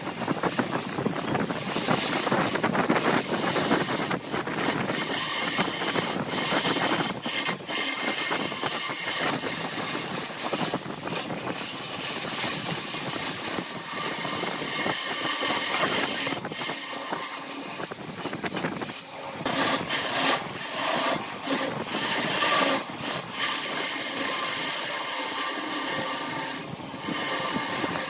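Wood lathe running, with a turning tool working a spinning blank of bamboo chopsticks set in epoxy resin; the steady scraping noise breaks off briefly several times as the tool is lifted and set back.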